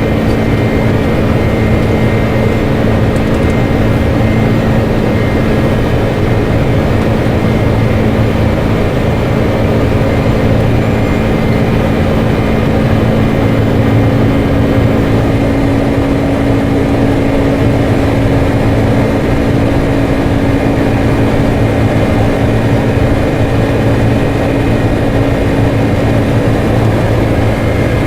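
Boeing 747-400 flight-deck noise: a steady rush of air and engine drone, with a low hum that rises slightly in pitch about halfway through.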